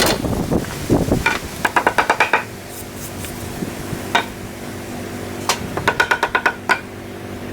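Two quick runs of sharp, ringing taps, about seven or eight to the second, one near the start and one near the end, with a few single taps and a faint steady hum between them.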